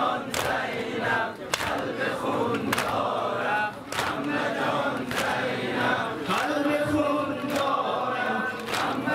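A crowd of male mourners chanting a Persian noha in unison while beating their chests in time (matam). A sharp slap of many hands lands together about once every second and a bit, over the sustained group singing.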